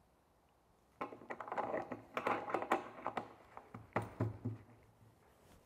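A rapid clatter of light knocks and taps, like small parts being handled. It starts about a second in, is busiest in the middle and thins out near the end.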